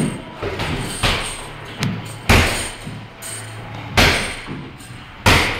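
Punches and knee strikes landing on a hanging heavy punching bag: a run of thuds, lighter at first, then three hard ones each more than a second apart.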